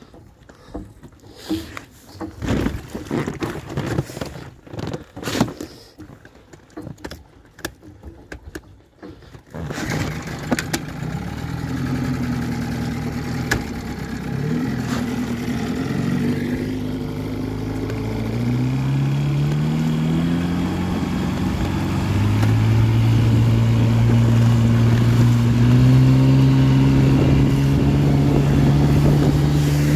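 A 6 hp outboard motor on an inflatable dinghy starts abruptly about a third of the way in, after a stretch of knocks and clatter, then runs steadily. Its pitch steps up several times in the second half as the throttle is opened and the boat gets under way.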